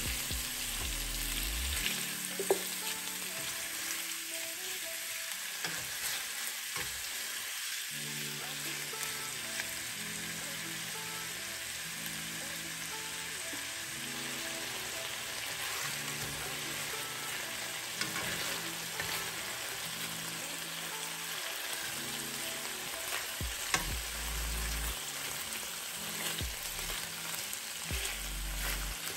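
Chicken thighs sizzling steadily in hot oil in a frying pan, with a couple of sharp clicks, one about two seconds in and one late on.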